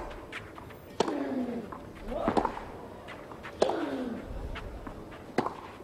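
Tennis rally on a clay court: sharp racket strikes on the ball roughly every one and a half seconds, four in all. The first three each come with the hitting player's grunt, falling in pitch.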